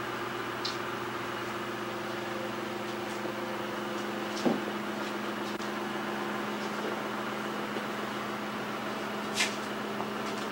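Steady background hum, with a few faint clicks and a soft knock about four and a half seconds in.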